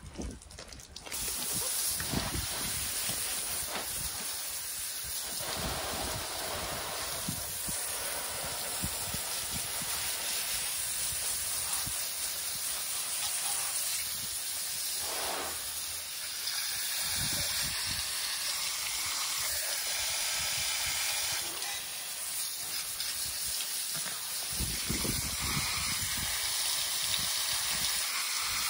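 Water spraying from a handheld garden-hose nozzle onto a car's alloy wheel and tyre, rinsing off the wash foam. It is a steady hiss that starts about a second in.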